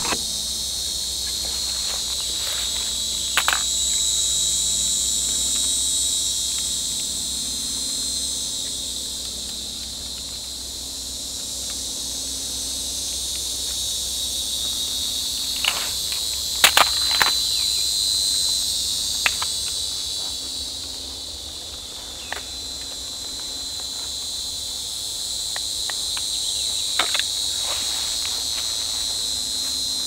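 A steady, high buzzing insect chorus in the woods that slowly swells and fades, with a few scattered sharp clicks, the loudest a quick cluster about 17 seconds in.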